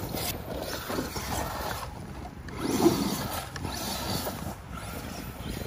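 Arrma Kraton 8S RC monster truck with a Castle brushless power system being driven, its motor and tyres on loose dirt, with a louder surge about three seconds in.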